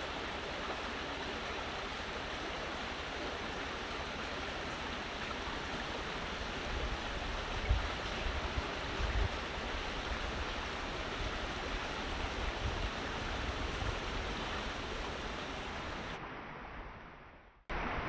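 Steady, even rushing noise, with a few brief low thumps about halfway through; it fades out shortly before the end.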